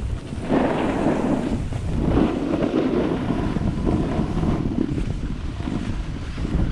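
Wind buffeting the microphone of a camera carried down a ski slope: a loud, rushing noise that swells and eases every second or so.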